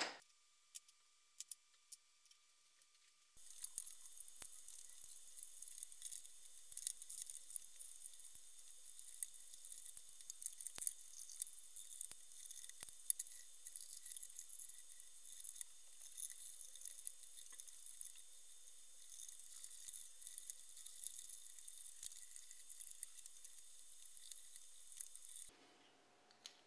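Faint small clicks and taps of plastic parts and bushings being handled, over a high-pitched hiss that starts a few seconds in and cuts off abruptly near the end.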